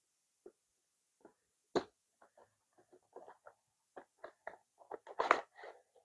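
Cardboard charger box being opened by hand, its blue inner tray sliding out of the paper sleeve: scattered scrapes and clicks, with one sharp click about two seconds in and a busier run of scraping near the end.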